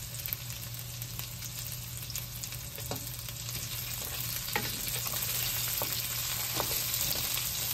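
Diced boiled potato, onion, cumin and mustard seeds sizzling steadily in hot ghee in a stainless steel wok. A wooden spatula stirs them, with a few sharp clicks and scrapes against the pan.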